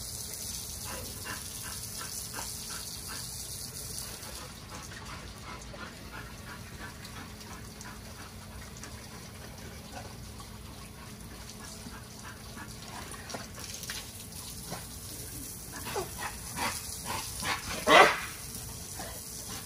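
Dogs whining and yipping over the steady hiss of a hose spraying water on the kennel's concrete floor. Near the end the XL pitbulls break into a string of barks, the loudest about two seconds before the end.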